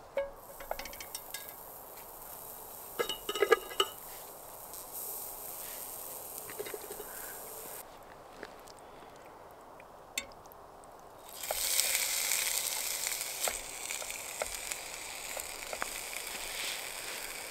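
Mushrooms and then perch fillets sizzling in a dry non-stick frying pan on a gas camp stove, cooked without oil or butter. A few clinks come a few seconds in, and the sizzling gets much louder about two-thirds of the way through as the fish fillets go in.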